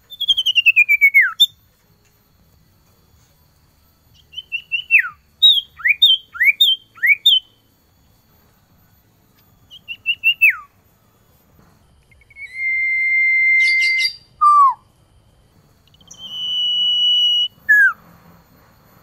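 Male common iora (cipoh) singing to call a female, in clear whistled phrases: a falling whistle, a run of quick falling notes, then two long level whistles, each followed by a short falling note.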